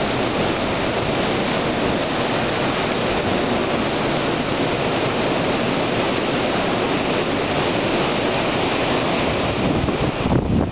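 Hurricane wind rushing through the trees in a steady loud roar, buffeting the microphone, easing briefly near the end.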